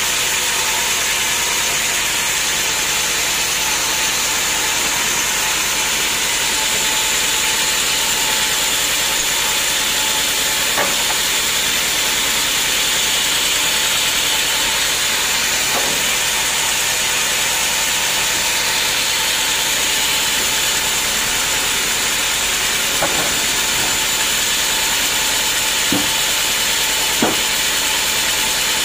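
Band sawmill running steadily, giving a continuous hiss with a steady high whine. A few faint knocks are scattered through it.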